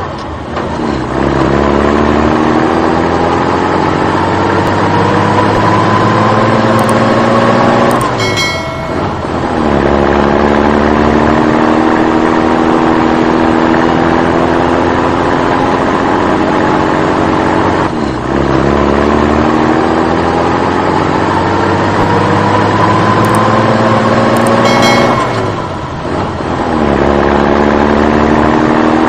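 Truck engine sound accelerating: its pitch climbs steadily for about eight seconds, breaks off with a short dip, and starts low again, the same rise repeating about three times like a looped sound effect.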